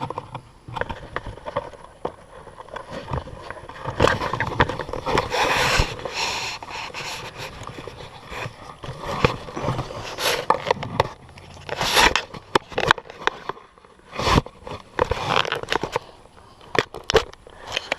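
Irregular knocks, clicks, scrapes and rustling of someone moving about and handling gear, with no steady source behind them.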